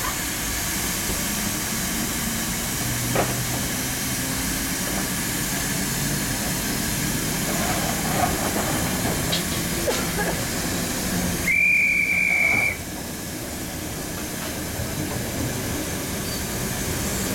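Steady hiss of steam from Great Western Railway steam locomotives standing at a platform, with one whistle blast about two-thirds of the way through: a single high note held for just over a second.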